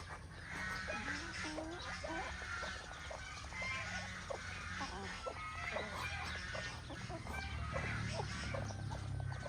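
Mother hen clucking among her chicks, with many short, overlapping peeps.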